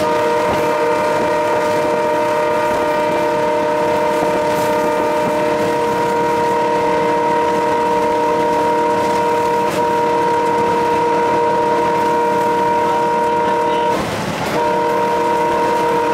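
Alco WDM3A diesel locomotive's horn held in one long blast of about fourteen seconds, several pitches sounding together, then cut off briefly and sounded again near the end. Underneath run the locomotive and the clatter of wheels on the rails.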